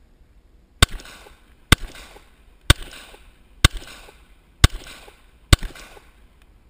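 Glock pistol firing a steady string of about seven shots, roughly one a second. Each sharp crack is followed by a short echo.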